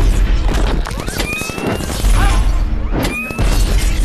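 Action-film battle sound mix: a music score under heavy deep booms and several sharp crashing impacts, with short, slightly rising whines.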